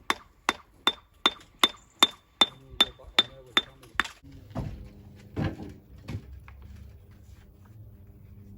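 Rapid, evenly paced hammer blows on metal, about two and a half a second with a bright ringing note, stopping about four seconds in. Three duller, heavier knocks follow.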